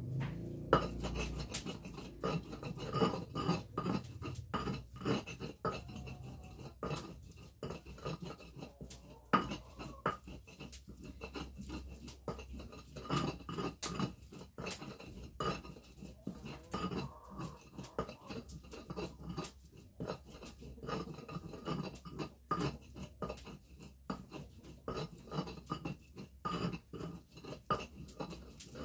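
A stone pestle grinding in a stone mortar (Indonesian ulekan and cobek): irregular scraping strokes with short knocks and clicks of stone on stone, several a second.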